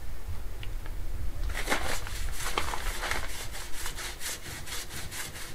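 A paintbrush scrubbing oil onto bare timber beams: back-and-forth brush strokes on the wood, starting about a second and a half in and going on at about four strokes a second.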